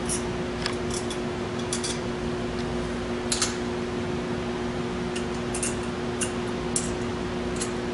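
Light metallic clicks and clinks as load-wire ring terminals are handled and fitted onto a load bank's resistor terminal studs, a few scattered taps with the sharpest about three seconds in, over a steady background hum.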